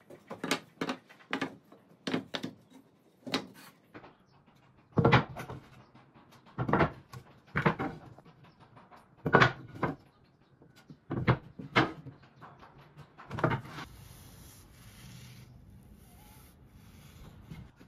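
Cut pallet-wood boards knocking and clattering against each other and a wooden workbench as they are handled and set down: about a dozen separate knocks, irregularly spaced a second or so apart, stopping near the end.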